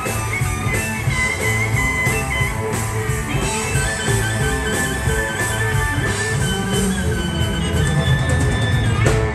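Live blues band playing an instrumental: electric bass and drums under electric guitar, with harmonica and a bowed fiddle carrying long held melody notes.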